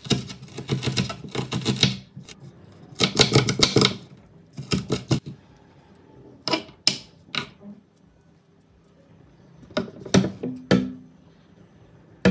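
Kitchen knife chopping onion on a wooden cutting board: two runs of rapid chops in the first four seconds, then scattered single chops, and a louder knock near the end.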